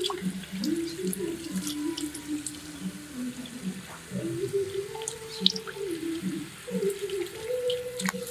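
Tap water running into a stainless steel sink and splashing over raw pig lungs and chicken as they are rinsed and rubbed by hand, with scattered drips and splashes. A low wavering tone runs underneath.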